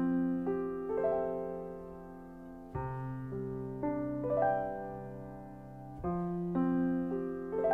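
Slow, gentle piano music: soft chords whose notes come in one after another and ring out, with a new chord about every three seconds.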